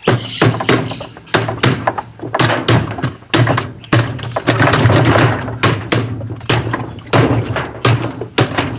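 Repeated irregular knocks and taps on a washing machine's agitator and its screw-type puller tool, struck to jar the agitator loose from the drive shaft.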